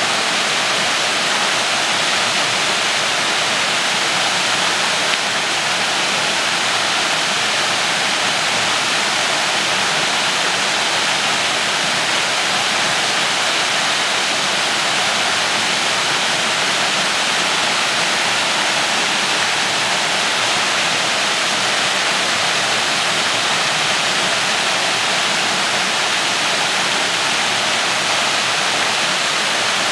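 Waterfall pouring steadily over a rock ledge into a plunge pool, an even rushing hiss of falling water.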